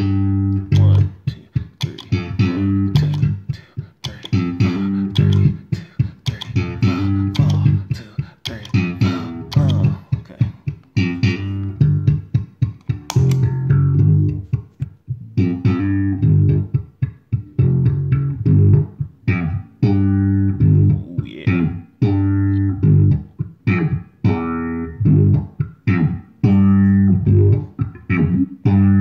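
Electric bass guitar playing a rhythmic line of short plucked notes through effects pedals, with bright upper overtones over deep low notes.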